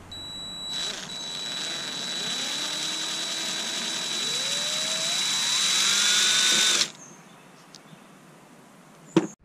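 Cordless drill running for about seven seconds, boring a small bit through a rubber grommet, its whine rising in pitch as it speeds up before stopping abruptly. A single click follows near the end.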